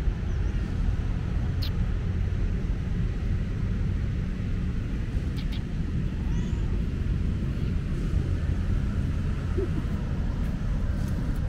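Steady low outdoor rumble with no clear pitch, with a few faint clicks about two and five seconds in.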